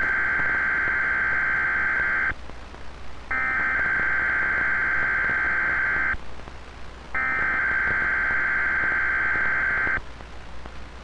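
Weatheradio Emergency Alert System (SAME) digital header: three bursts of buzzing, warbling data tones, each about three seconds long with a gap of about a second between them. They mark the start of a coded weather alert.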